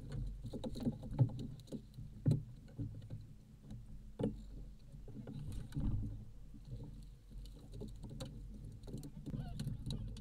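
Water lapping and slapping against the hull of a small fishing boat, with a low rumble of wind and irregular knocks throughout.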